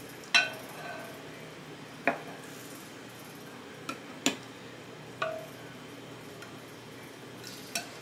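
Stainless steel ladle clinking against a glass measuring cup and glass canning jars while ladling pickle brine: about six sharp clinks a second or two apart, several ringing briefly.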